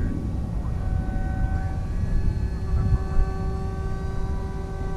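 Electric motor and propeller of a Hobbyking Teksumo foam delta wing whining at a steady pitch in flight, over a low rumble.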